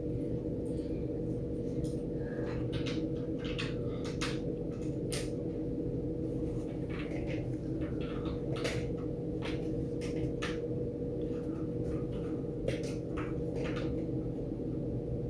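Scattered light taps and clicks of a watercolour brush being dabbed onto rough cotton paper and worked in the palette, over a steady low hum.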